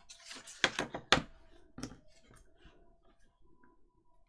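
Paper being handled and rustled on a work table, with a few sharp clicks in the first two seconds, then only faint ticks.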